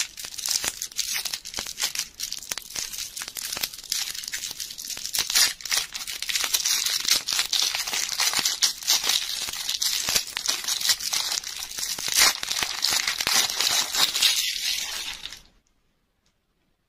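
Pink foil and clear plastic lollipop wrapper crinkling and tearing as it is peeled off by hand, a dense run of crackles that stops suddenly near the end.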